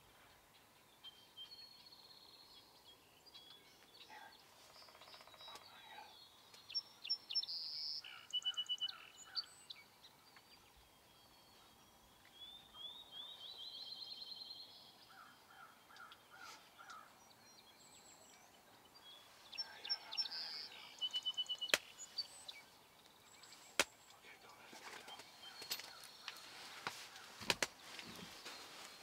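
Faint chorus of songbirds chirping and singing, busiest about a quarter of the way in and again about two-thirds through, with a short rising trill near the middle. A few sharp clicks come near the end.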